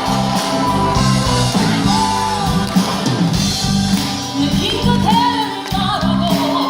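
Live band music with singing voices: a rock-style song with guitar and a steady beat, sung melody notes held and sliding.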